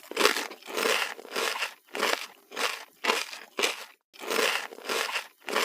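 Crunchy food being chewed: a steady run of short crunching bites, about two a second.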